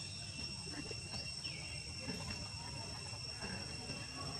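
Steady high-pitched insect chirring, two unbroken shrill tones held level throughout, over a low rumble. A few faint short falling chirps come through about a second in and near the end.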